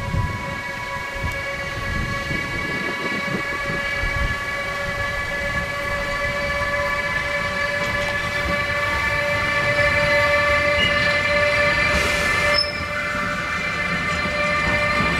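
Siemens Vectron electric locomotive drawing a long train of loaded coal-briquette wagons, approaching and passing. A steady whine of several high tones rises slightly in pitch over a rumble of wheels and grows louder as the train nears. Near the end a rush of noise cuts off suddenly as the locomotive goes by.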